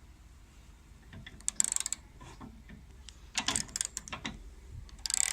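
Ratchet handle with a 13mm socket tightening a wheel axle nut: the pawl clicks rapidly in three short bursts, starting about a second and a half in, with pauses between strokes.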